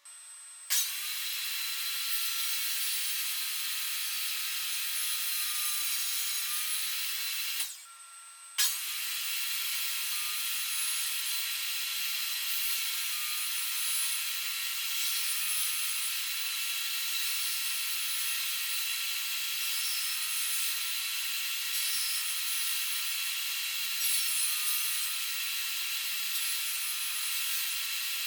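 An electric power tool running and working wood, starting abruptly about a second in, stopping for about a second around eight seconds in, then starting again and running steadily.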